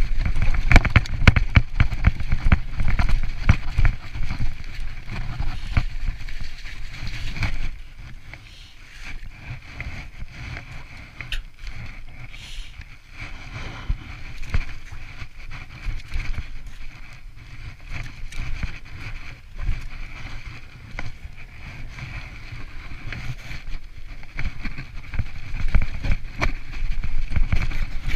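Mountain bike ridden over snowy, rough moorland: wind rumbling on the microphone and the bike rattling and knocking over the bumps. Louder for the first several seconds, quieter through the middle, and louder again near the end.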